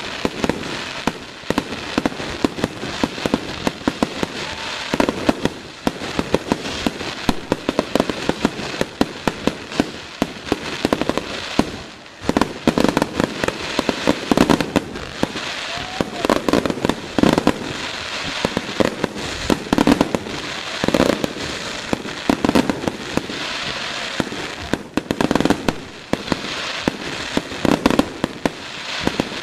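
Fireworks going off: a dense, irregular barrage of sharp bangs and crackles with no pause.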